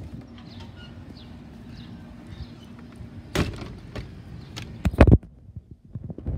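Handling noise on a phone microphone: a faint low hum, then rustling and a few sharp knocks as the phone rubs and bumps against clothing, the loudest knocks about five seconds in.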